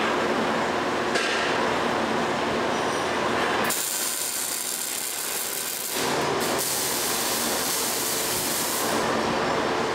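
MIG welding arc crackling and sizzling as steel leg braces are welded to a steel box. The sound changes character about four seconds in and again about six seconds in.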